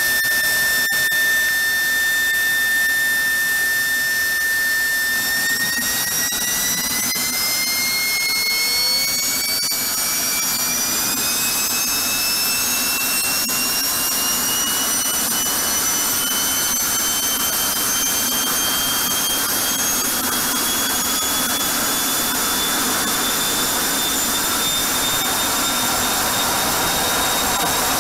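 F-16's afterburning turbofan engine running on a test stand. Its whine holds steady for about five seconds, then rises steadily in pitch as the engine spools up to higher power.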